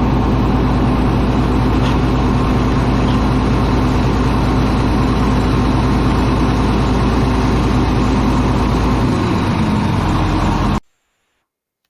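Old Caterpillar D8 bulldozer engine running steadily, cutting off suddenly near the end.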